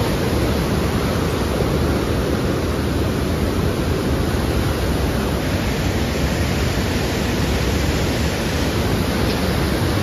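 Steady rush of the flooded Koshi River pouring through and around the barrage's gates and piers, an even unbroken noise heavy in the low range.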